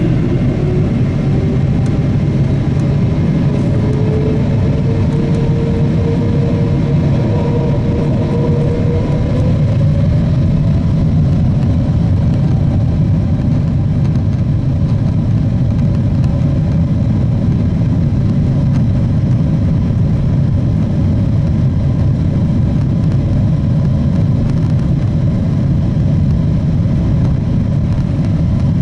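Boeing 777-200ER's General Electric GE90 turbofans spooling up to takeoff thrust, heard from inside the cabin as the airliner accelerates down the runway. A whine climbs in pitch over the first ten seconds or so, over a loud, steady low rumble.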